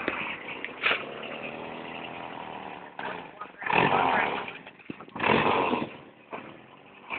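1945 Ford GPW jeep's four-cylinder flathead engine running, revved up in two short bursts near the middle.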